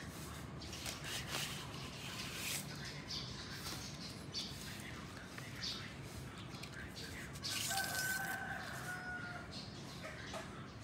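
Crinkling and rustling of a thin plastic record sleeve and cardboard jacket as an old vinyl LP is handled and slid out, in a run of short crackles. About three-quarters of the way in, a steady tone lasting over a second sounds along with the rustling.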